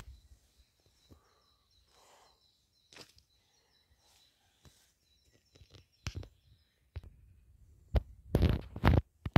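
Sparse, irregular footsteps crunching on dry fallen leaves on a woodland path, with a louder leafy crunch about eight and a half seconds in.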